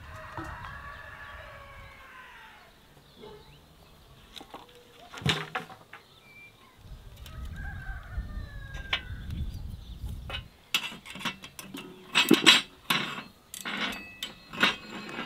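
A rooster crows, one long call of several bending notes at the start, and a shorter pitched call follows about eight seconds in. In the last few seconds come a run of sharp clicks and knocks.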